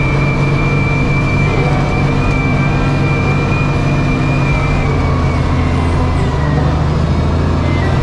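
John Deere wheel loader's diesel engine running steadily under load as the bucket pushes snow, with a thin high whine over it; the engine note shifts lower about five seconds in.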